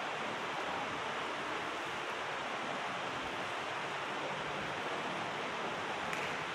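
Steady, even hiss of background noise with no distinct event in it.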